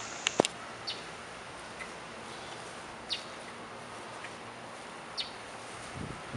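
A small bird chirping in the background: short high chirps about every two seconds over a steady outdoor hiss. Two sharp clicks come about half a second in, and a low thump comes near the end.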